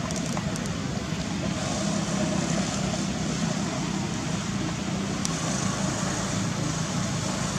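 Steady low rumble with hiss, like traffic or engine noise, with a few faint clicks.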